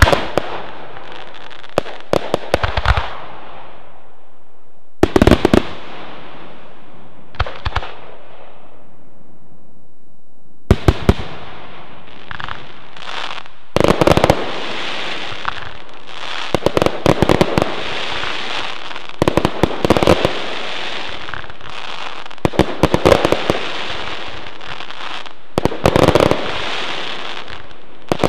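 Fireworks display: clusters of sharp bangs from bursting shells, each trailing off in a hissing crackle. There are short lulls a few seconds in and again around ten seconds in, then near-continuous volleys from about fourteen seconds on.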